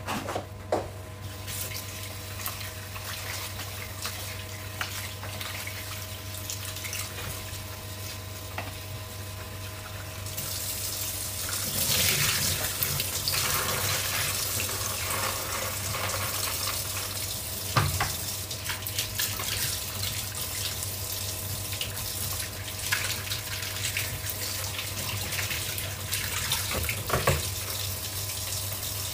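Kitchen tap running into a sink, the water growing stronger about ten seconds in, with a few short knocks in the second half.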